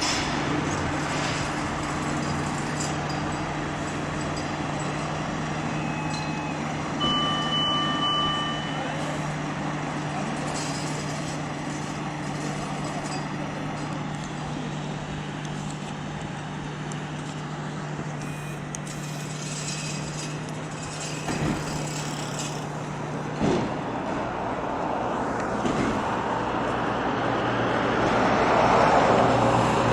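Fire-service vehicles idling with a steady low hum. A short electronic beep sounds about seven seconds in, and the hum stops with a click about 23 seconds in.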